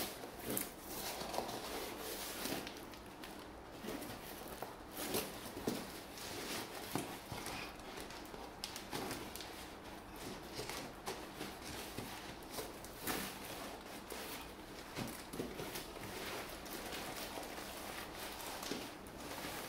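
Hands tearing and peeling packing tape and plastic wrap off a long cardboard parcel: irregular rustling and tearing with scattered sharp knocks and scrapes.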